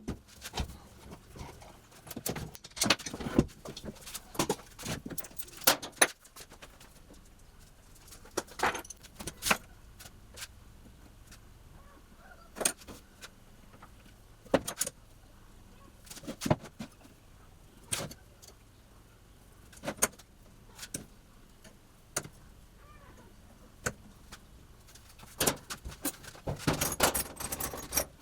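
Workshop handling noises: sharp clicks, knocks and light metallic clinks of wood pieces and small hardware being picked up and set down, one every second or two, with a denser clatter near the end.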